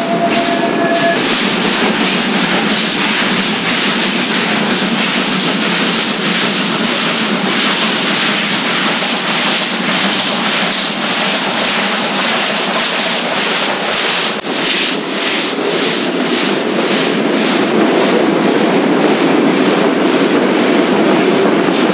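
Italian-built Mallet steam locomotive climbing a mountain grade past the listener, its exhaust beating in an even rhythm. The wheels of its coaches and goods wagons roll by near the end.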